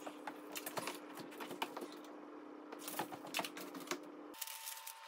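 Irregular light clicks and taps of a steel tape measure being pulled out and held against a wall, over a faint steady hum that cuts out just after four seconds.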